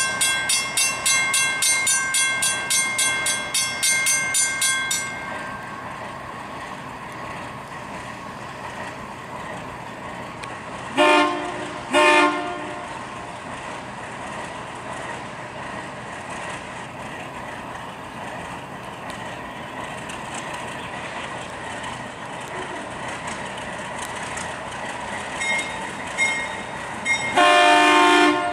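A bell rings rapidly, about three strikes a second, for the first five seconds and then stops. Then an ALCO RS3 diesel locomotive's air horn gives two short blasts about eleven seconds in, the standard signal that the train is about to move forward, and one longer blast near the end, over the low sound of the locomotives.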